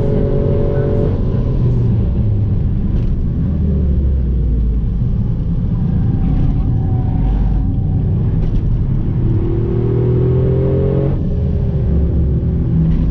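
Toyota Yaris engine heard from inside the cabin on track, pulling hard with its note rising until it drops sharply about a second in, running lower through a bend, then rising again and dropping sharply near the end, over a heavy road and tyre rumble.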